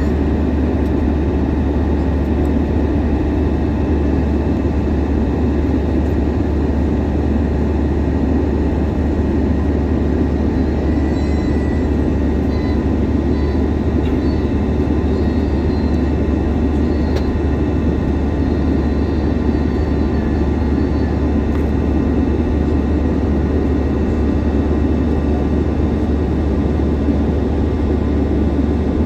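Steady cabin noise inside an Airbus A321-200: the jet engines and rushing airflow make an even, loud, low rumble with no change in level, as heard by a passenger in flight after take-off.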